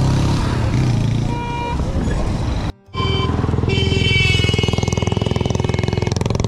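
Road traffic: vehicle engines running close by, with a brief break a little under three seconds in. From about four seconds a high, steady tone sounds over the engines for about two seconds.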